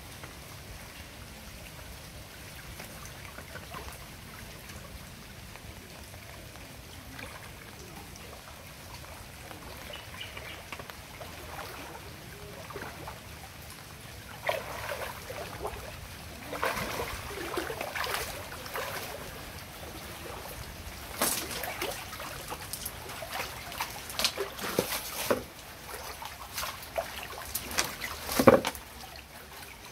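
Flood water trickling and sloshing around a man wading with a cast net full of fish. From about halfway there is a run of irregular splashes and sharp knocks as the wet net and catch are handled, the loudest one near the end.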